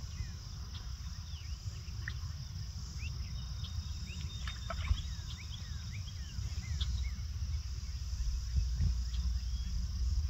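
Outdoor summer ambience: a steady high insect trill with many short, quick falling chirps over it. A low rumble of wind on the microphone grows louder toward the end.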